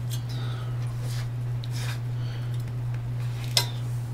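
Small hardware being handled: soft rustles as a metal chassis plate, a geared motor and a plastic parts bag are moved, with one sharp click near the end. A steady low hum runs underneath throughout.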